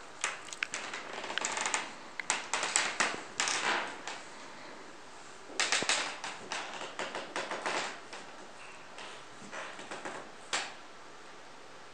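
Rapid, irregular sharp clicks and taps in two bursts: one running for about the first four seconds, another starting between five and six seconds in, with a few scattered taps near the end.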